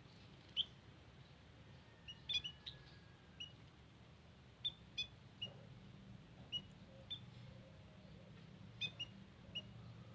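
White-headed munias (emprit haji) giving short, high chirps, some single and some in quick runs of two or three, over a low steady hum.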